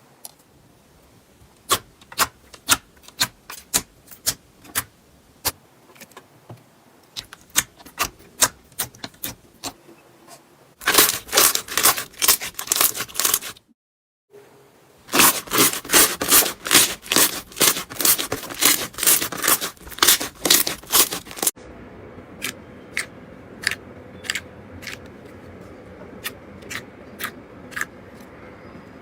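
Slime being pressed and stretched, giving sharp clicking and crackling pops. The pops come scattered at first, then in dense, fast runs in the middle, broken by a brief cut to silence, and grow sparser again over a faint steady hum near the end.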